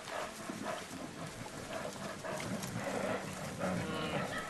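Brown bears grunting and moaning in low calls, which grow stronger about three seconds in: a male courting a female.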